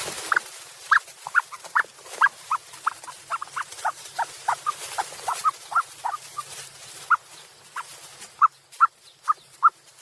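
A long, irregular series of short, high-pitched squeaky chirps from an animal, about two or three a second, some dipping in pitch. The loudest come near the end. A hiss fades out in the first half-second.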